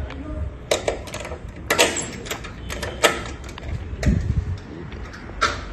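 A painted metal door's sliding tower bolt being worked and the door opened: a string of sharp metallic clicks and knocks, with a duller thump about four seconds in.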